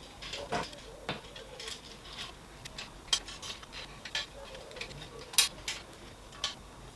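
Irregular small metallic clicks and taps of hand-fitting slot nuts and screws into a 3D printer's frame, with one sharper click about five and a half seconds in.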